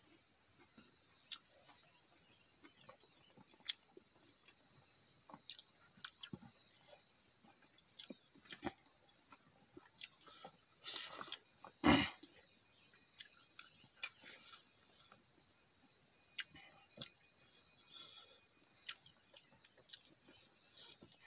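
Crickets or other insects chirring steadily in a high, pulsing trill. Scattered small clicks and smacks of people eating by hand off banana leaves, with one louder, short sound about twelve seconds in.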